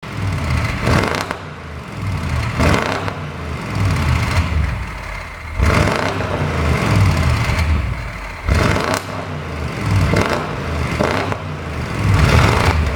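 Audi A8L 4.0 TFSI twin-turbo V8 revved again and again, with sharp pops and crackles from the exhaust as each rev falls back. This is the sound of an overrun pop-and-crackle engine tune.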